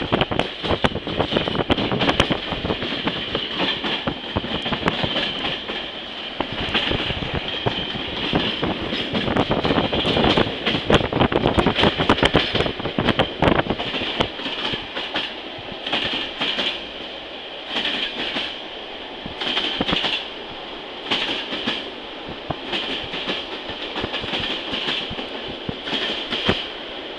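Passenger train running over jointed track, heard from inside the coach: the wheels clatter densely through the first half, then settle into a regular clickety-clack about once a second over a steady running hiss.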